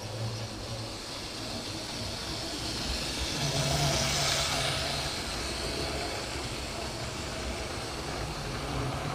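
Analogue model train running on its track, its electric motor humming and wheels rattling along the rails, getting louder as it comes close and passes, loudest about four seconds in.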